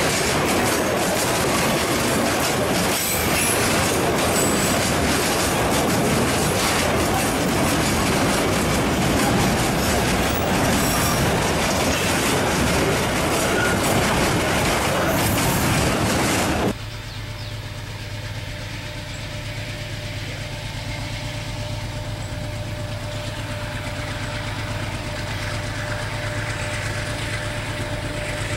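Freight train wagons rolling past, with wheels clattering over the rails and some wheel squeal. About two-thirds of the way through, the sound cuts to a diesel-electric freight locomotive's engine running steadily. It grows slowly louder as the locomotive approaches.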